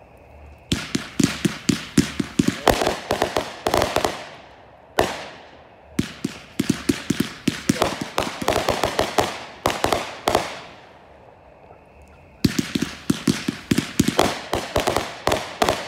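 Backyard consumer fireworks firing rapid volleys of small, sharp crackling reports, several a second. They come in three long runs with a single report and short lulls between them.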